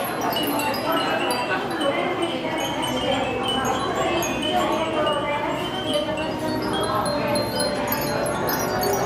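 Many Japanese fūrin wind bells ringing together in a dense, continuous tinkling, with high, clear tones overlapping and constantly renewed.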